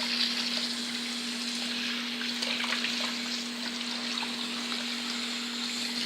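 Water swishing and trickling as freshly cut potato chips are washed by hand in a bowl of water, with small splashes, over a steady low hum.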